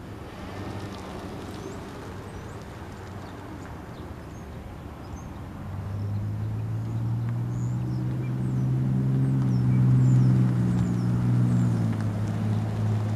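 2007 Ford F-150 pickup driving across the lot, its engine a faint rumble at first, then a steady hum that grows louder from about halfway as the truck drives back toward the listener and eases off near the end. Small birds chirp throughout.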